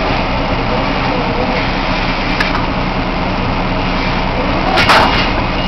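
Oil drilling rig's engines and machinery running steadily while a drill-pipe connection is made, with one sharp knock about five seconds in.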